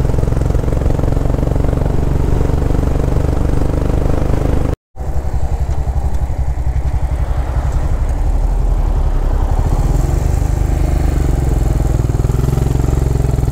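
Motorcycle engine running steadily while riding, with a low exhaust note. The sound drops out for a moment about five seconds in, then the engine carries on.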